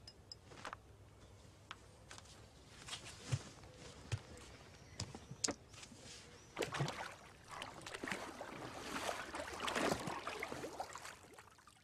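Quiet film sound effects: soft rustling and scattered small knocks and clicks, with a stretch of water splashing from about six to eleven seconds in.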